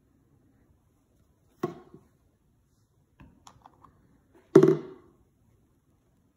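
Two sharp knocks about three seconds apart, the second louder, with a few light clicks between them: a plastic oil bottle being handled and knocked against a granite countertop.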